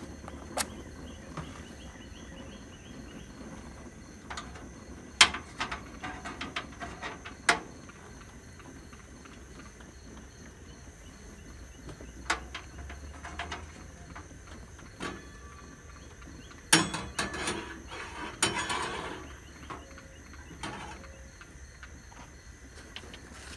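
Scattered clicks and knocks of metal camp cookware being handled, with a louder run of clatter about 17 to 19 seconds in as a carbon steel skillet is shifted onto the camp stove's wire grate.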